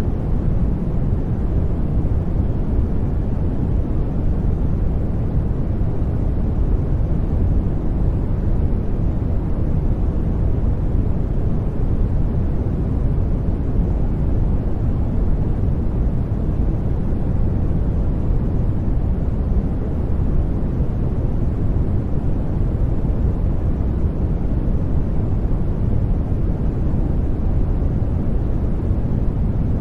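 Steady sleep-noise track: a deep, even hiss, heavier in the low end than the high, that does not change.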